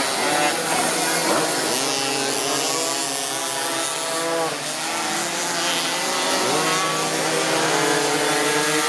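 Several minimoto racing bikes' small two-stroke engines buzzing as they lap, revving up and down with their overlapping pitches rising and falling.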